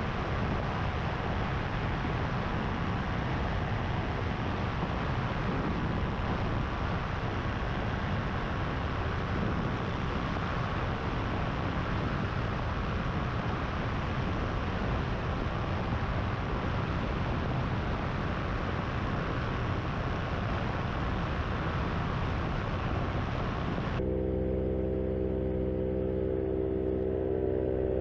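Paramotor engine running steadily in flight, mixed with wind rushing over the microphone. About 24 seconds in, the sound changes abruptly to a steadier drone with clear humming tones.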